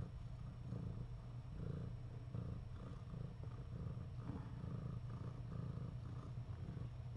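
A domestic cat purring: a low, continuous rumble that swells and eases slightly every second or so.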